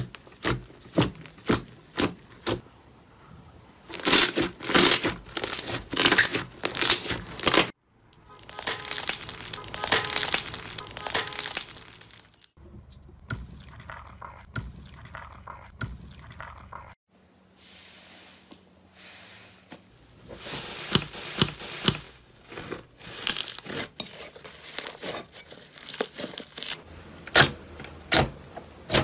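Hands squeezing, pressing and poking slime, making runs of sharp sticky pops and clicks with denser crackling stretches.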